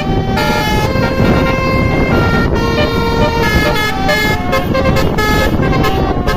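Bus basuri horn, a multi-trumpet air horn, playing a melody of short notes that jump between pitches over a steady low rumble.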